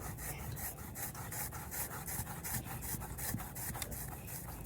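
Hands rolling soft slime back and forth on a surface: a steady, rhythmic rubbing of about four strokes a second.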